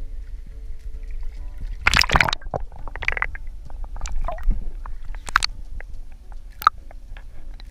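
Water sloshing and splashing against a kayak hull in several irregular bursts, about two, three, five and a half and near seven seconds in, over a constant low rumble. Faint background music plays underneath.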